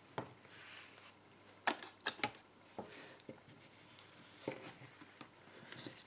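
Faint, scattered metal clicks and scrapes from a small lever padlock being handled while a bent bicycle-spoke tension wire is worked into it from the back, with a few sharper clicks about two seconds in.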